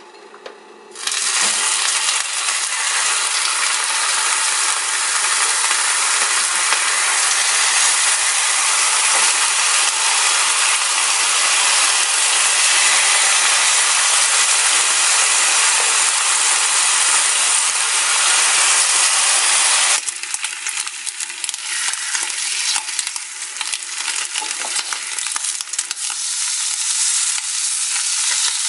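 Turkey bacon sizzling in a frying pan on an electric stove: a steady, loud hiss from about a second in, turning about two-thirds through into a thinner sizzle with many small pops and crackles.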